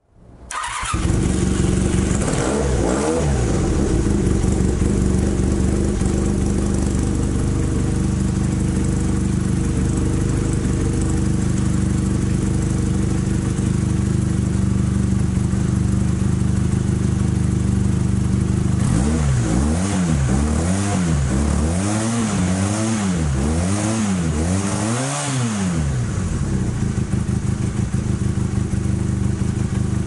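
Motorcycle engine idling with its exhaust piped into a flexible aluminium duct hose used as a makeshift external silencer. It gets a couple of throttle blips about two seconds in, then a quick run of about six blips about twenty seconds in, before settling back to idle.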